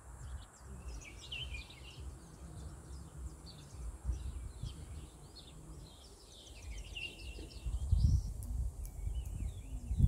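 Several small birds chirping and twittering, over wind gusting on the microphone as an uneven low rumble that grows stronger over the last couple of seconds.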